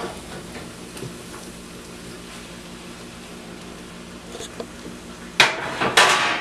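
A metal baking dish knocked twice against a skillet near the end, two loud clatters about half a second apart. Before that, a low steady hum with a few faint taps as bread cubes tip out of the dish into the pan.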